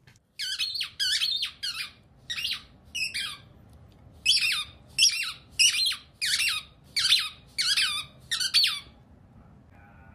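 A dachshund chewing a small rubber squeaky toy: a quick series of short, high squeaks, each falling slightly in pitch, about two a second, with a brief pause partway through.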